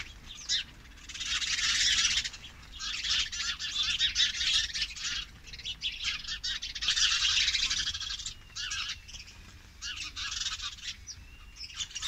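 A flock of sparrows chirping together in a horse chestnut tree as they settle on branches to roost for the night. The chatter comes in loud bouts a second or two long, with quieter gaps between them.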